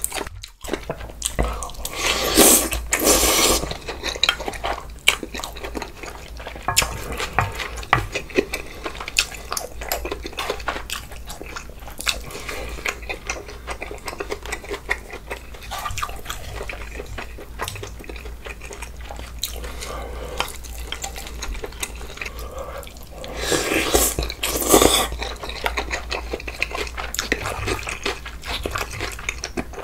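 Close-miked eating sounds of a bulgogi hot pot with glass noodles: steady chewing and smacking with spoon and chopsticks clicking against the dishes, and two longer slurps, about two seconds in and again near the end, that are the loudest sounds.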